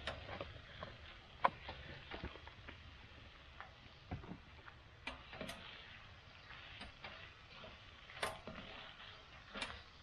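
Mushrooms and sausage frying in a cast iron pan, a faint steady sizzle as the mushrooms cook down, with scattered sharp clicks and scrapes of a utensil against the pan; the loudest click comes about one and a half seconds in.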